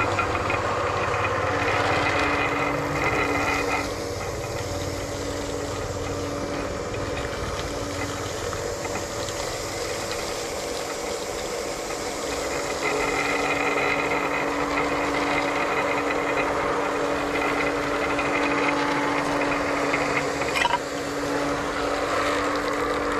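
Electric deep-suction pump on a drilled well running steadily, a constant motor hum with a hiss over it. It eases slightly about four seconds in and picks back up around thirteen seconds, with a single short knock near the end.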